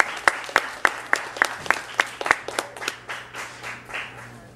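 Small audience applauding: hands clapping in a steady rhythm of about three or four claps a second, thinning out and dying away about four seconds in.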